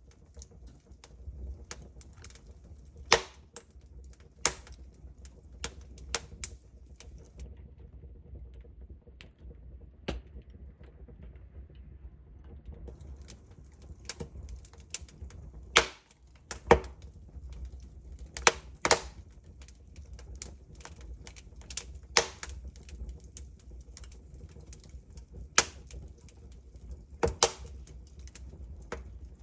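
Wood fire in a fireplace crackling, with irregular sharp pops every second or so, a few much louder than the rest, over a low steady rumble.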